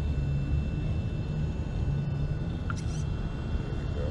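Wind buffeting the microphone in a low, uneven rumble, with a faint steady high-pitched whine under it and a brief squeak about two-thirds of the way in.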